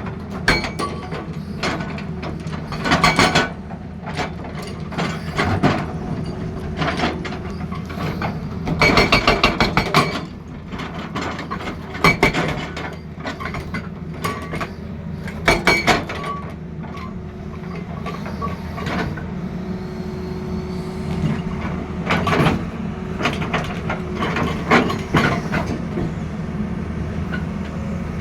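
Hydraulic breaker on a Tata Hitachi excavator hammering in short bursts of rapid blows, over the steady running of the excavator's diesel engine.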